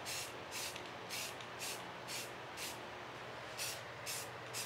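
Aerosol spray paint can spraying in short hissing bursts, about two a second, with a brief pause a little past the middle.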